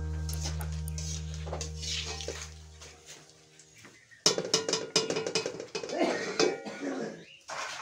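Background music fades out over the first few seconds. From about four seconds in, a metal slotted spoon scrapes and clinks against a metal wok, over the sizzle of hot oil, as fried dried red chillies are lifted out.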